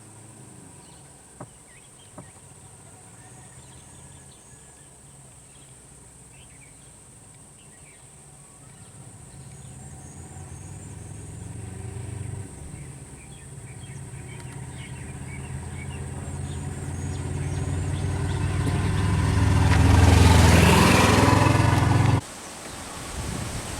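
A motor vehicle's engine growing steadily louder, peaking about twenty seconds in, then cutting off suddenly near the end. Two faint clicks come early.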